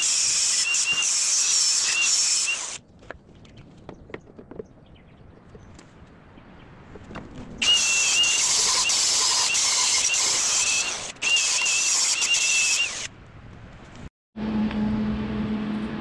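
Angle grinder grinding down cracks in a steel mounting tab, in two long runs of high whine that wavers as it is pressed into the metal, with a quieter pause of small clicks between them. Near the end a steady low hum takes over.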